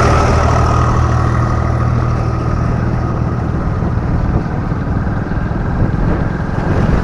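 Vehicle engine running steadily while under way, with road and wind noise.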